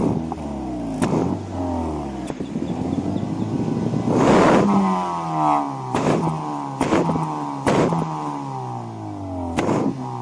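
2007 Honda Civic's four-cylinder engine revved repeatedly through an exhaust fitted with a muffler, its pitch climbing and falling with each blip of the throttle and peaking about four seconds in. Sharp cracks punctuate the revving every second or so.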